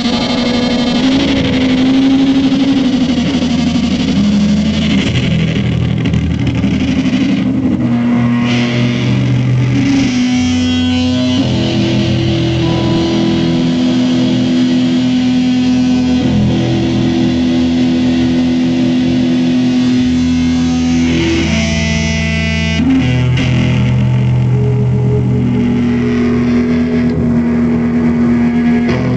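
Live band playing an instrumental passage on amplified, distorted electric guitars, with long held, droning notes that change every few seconds.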